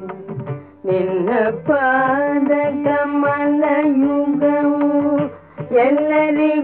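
Carnatic devotional song: a woman's singing voice holds long, slowly bending notes over instrumental accompaniment, entering about a second in and breaking off briefly about five seconds in before resuming.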